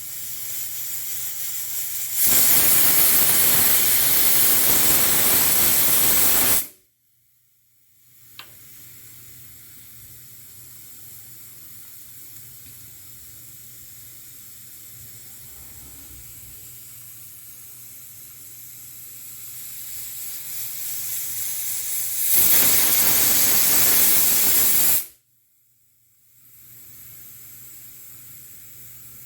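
Pressure cooker whistle venting steam: a hiss that builds, then a loud blast of rushing steam lasting about four seconds that cuts off abruptly. A quieter steady hiss follows and builds again into a second loud blast near the end, about three seconds long, that also stops suddenly.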